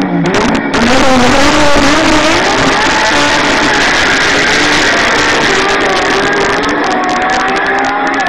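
Dragster engine running flat out: a loud, steady noise that comes in suddenly about a second in and holds, with wavering pitched tones over it.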